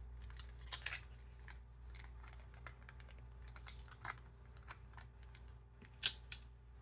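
Scattered light clicks and ticks of small hand tools working on a lock cylinder, the sharpest about a second in and again near the end, over a steady low hum.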